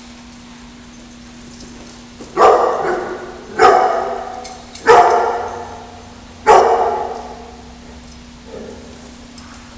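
Dog barking in a tiled room: four loud barks about a second apart, each echoing off the hard walls, then a fainter bark near the end.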